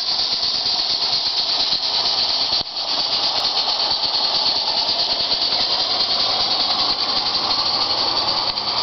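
Long train of large-scale model freight cars rolling past on metal track: a steady rushing hiss of many wheels on the rails, with a brief dip about two and a half seconds in.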